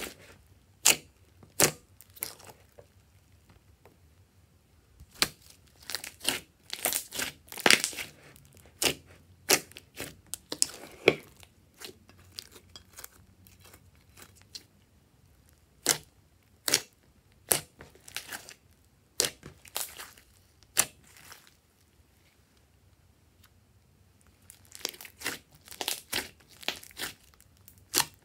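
Hands squeezing, stretching and pressing glossy slime, with irregular sharp, wet clicking pops as air pockets in the slime burst. A lull of a few seconds comes past the middle before the pops pick up again near the end.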